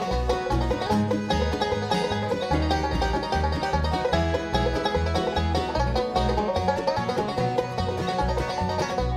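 Bluegrass band playing an instrumental passage, the five-string banjo picking out front over upright bass on the beat, with acoustic guitar, fiddle and resonator guitar.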